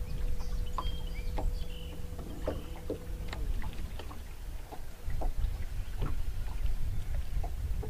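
Small waves slapping against the hull of a bass boat as short, irregular knocks, with wind rumbling on the microphone. A faint steady hum runs underneath and stops a little over three seconds in.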